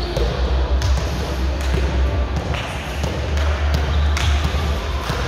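A ball bouncing on a hard gym court floor several times at uneven intervals, echoing in a large hall over a low steady rumble.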